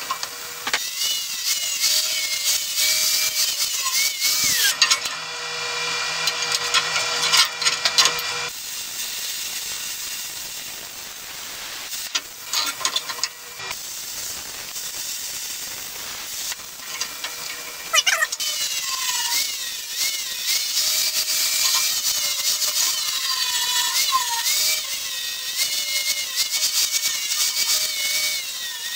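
Plasma cutter cutting 1/8-inch steel plate: a steady hiss with a wavering high whine, strongest in two long stretches with a quieter spell between.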